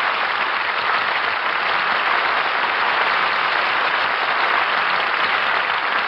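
Studio audience applauding steadily, heard on an old radio broadcast recording with the highs cut off.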